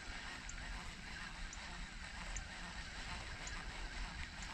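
Quiet outdoor ambience: a steady low rumble with faint honking of waterfowl and small high ticks about once a second.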